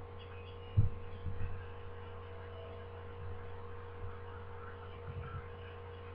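Steady electrical mains hum, with a few soft low thumps, the loudest about a second in.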